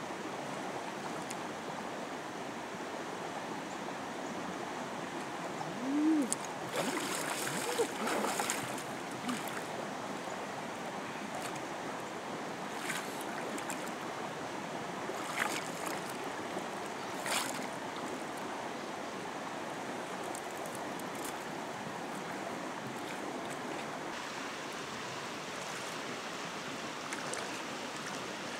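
Steady rush of flowing river water, with hands splashing in shallow water: a cluster of splashes about six to nine seconds in and a few single splashes later.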